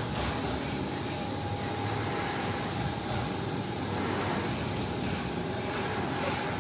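A steady mechanical drone with a thin, constant whine running through it, from machinery at a building construction site.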